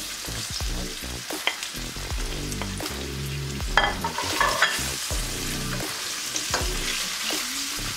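Sliced onions sizzling in hot oil with minced ginger and garlic in a stainless steel sauté pan. A wooden spoon stirs and scrapes against the pan with a few sharp knocks, loudest about four seconds in.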